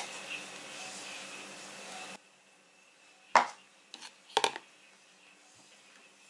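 A few short, light knocks of plastic food tubs being picked up and set down on a wooden table, the loudest a double knock a little past the middle.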